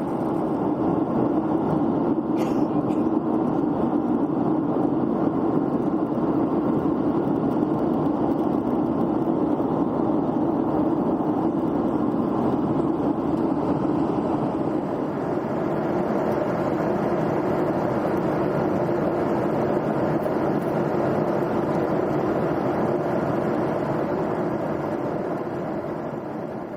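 Steady cabin noise of a jet airliner in flight, the engines and rushing air heard from a window seat, fading out at the very end.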